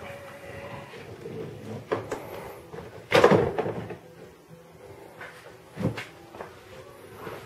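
A car battery being lifted out of its tray in the engine bay: knocks and scrapes of the battery case against the surrounding parts. The loudest is a clunk with a short scrape about three seconds in, and there is another knock near six seconds.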